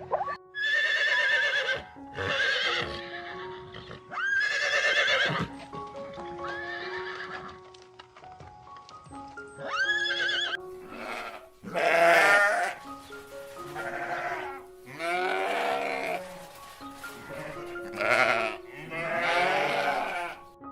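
A farm animal calling over and over, about eight wavering calls of around a second each, over steady background music.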